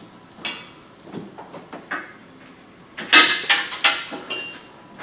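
Metal clanking and rattling as the lift's leg frame is handled and positioned on a jack. A few separate knocks come first, then a louder burst of clatter about three seconds in.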